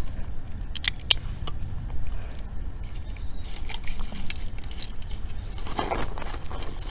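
Irregular sharp clicks and scrapes, with a louder rustling scrape near the end, over a low rumble of wind on the microphone.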